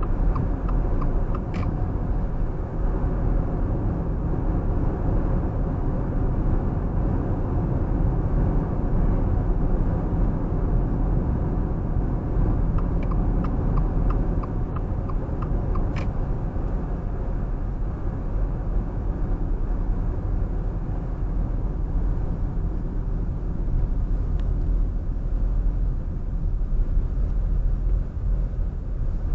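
Steady road and engine rumble of a car driving at a constant pace.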